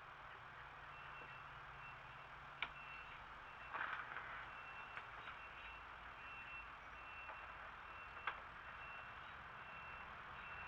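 Faint, evenly repeated high-pitched beeping, like a vehicle's reversing alarm, over steady outdoor background noise, with a couple of sharp clicks and a short rustle.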